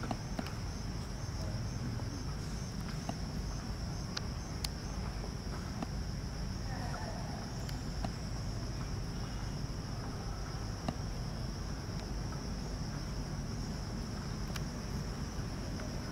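Steady high-pitched drone of insects in the forest, with a low rumble underneath and a few faint clicks.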